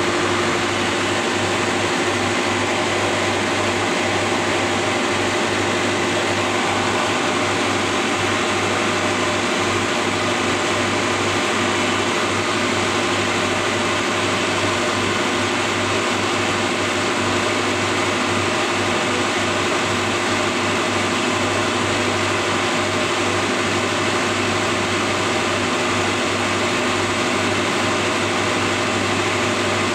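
Marine air-conditioning plant running: a steady machine hum with a low drone and a higher steady tone over a constant rushing noise.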